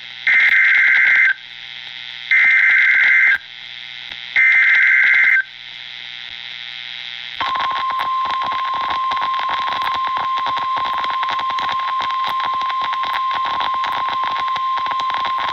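NOAA Weather Radio SAME header: three one-second bursts of warbling two-pitch digital data tones, about a second apart, heralding a severe thunderstorm warning. About two seconds later the steady single-pitch 1050 Hz weather-radio warning alarm tone comes on, with crackling reception static over it.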